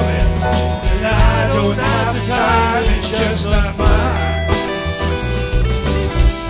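A rock band playing live: a man sings over electric bass, electric guitars and keyboard with a steady beat. The singing stops about four seconds in and the instruments carry on.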